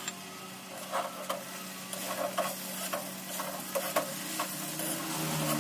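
Metal spatula scraping and clinking against a wok as noodles are stir-fried, the strokes coming irregularly about twice a second over a steady sizzle of frying.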